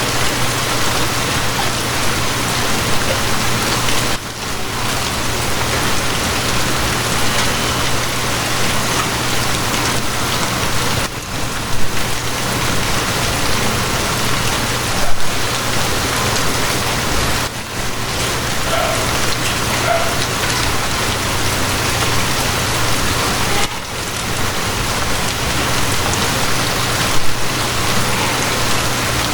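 Steady rain with a constant low hum of a train underneath, the rain briefly dipping a few times.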